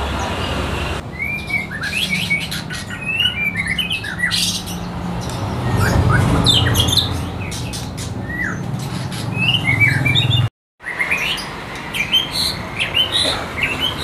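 Caged songbirds singing: quick runs of short chirps and whistled notes over a low rumble. The sound cuts off abruptly about a second in and again near the end.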